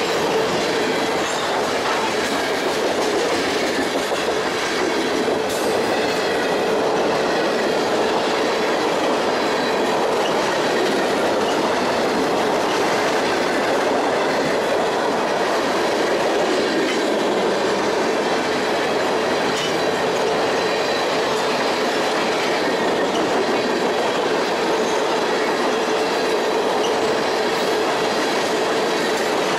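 Freight train of tank cars and covered hoppers rolling past steadily, its wheels clattering on the rails, with a faint high-pitched wheel squeal over the rumble.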